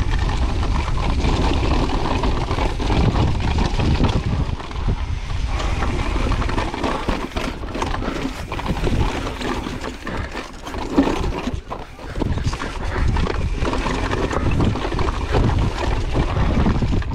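2022 Pivot Firebird mountain bike descending a rocky trail at speed: tyres on loose rock and the bike rattling over repeated bumps, with wind rumble on the microphone.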